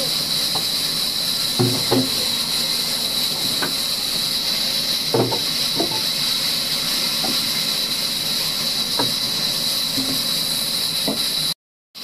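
Large sawmill band saw running with a steady high hiss, with scattered knocks of wooden beams being moved on the saw table. The sound cuts out abruptly for a moment near the end.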